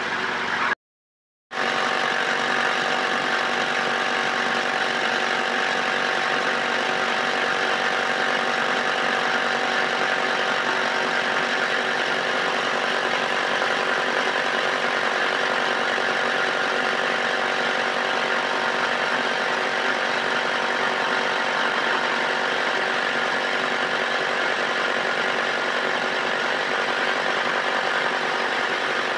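A motor running steadily, with a constant whine of several fixed pitches over a noisy mechanical drone. It cuts to silence for under a second near the start, then resumes without the deep rumble it had before.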